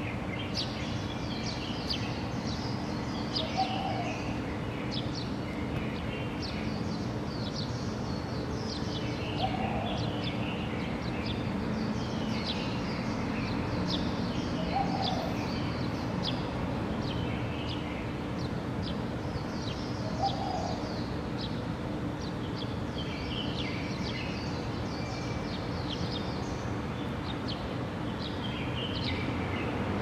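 Several birds chirping and singing in the trees, quick calls overlapping one another without a break, over a steady low hum. A short lower note comes back about every five to six seconds.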